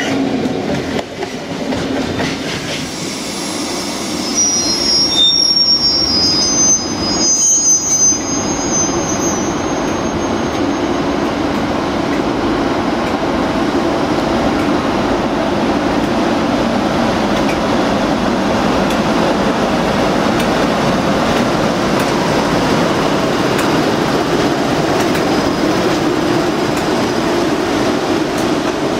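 Trains passing through the station. Wheels squeal in high notes from about four to ten seconds in, then a steady rumble of wheels on rail as a locomotive-hauled passenger train rolls past.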